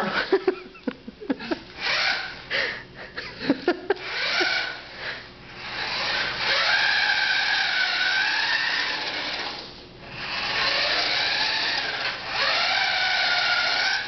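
Toy remote-control truck's small electric motor and gears whining as it drives across a hardwood floor, the pitch wavering with speed, in two long runs with a short stop about ten seconds in. A few short knocks and bursts come in the first few seconds.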